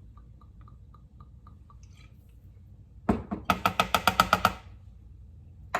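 Kitchen utensil knocking against a mixing bowl: faint regular ticking, then a sharp knock about three seconds in and a quick run of about ten light, ringing taps.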